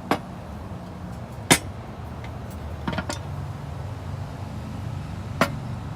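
A few sharp knocks and clinks over a low steady hum, the loudest about a second and a half in and a quick double knock about halfway through.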